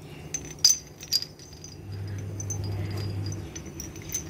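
Glazed clay wind-chime bells clinking against each other and their clay clappers: a handful of light, irregular clinks, each with a short high ring.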